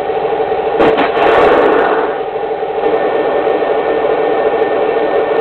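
A model tank's sound unit plays a steady engine-idle sound through its small speaker. About a second in there is a sharp click followed by a short hiss.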